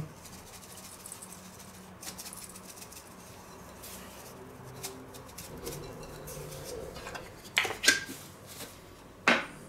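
Quiet kitchen handling: spice shaken from a small shaker over a stainless steel bowl of cubed pork, faint pattering and ticking, then a few sharper clicks, the loudest about eight seconds in and another just before the end.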